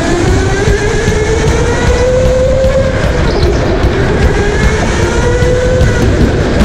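Go-kart engine revving, its pitch climbing for a couple of seconds, dropping off, then climbing and falling again as the throttle opens and closes, over a heavy low rumble.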